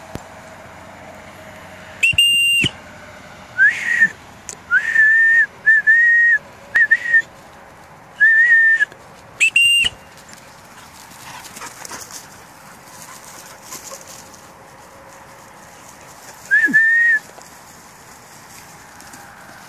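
Whistle signals: two loud, flat, high blasts about seven seconds apart, and between them and once more near the end a run of shorter, lower whistled notes that slide up briefly at the start. In a field of young hunting dogs these are the handler's recall whistles.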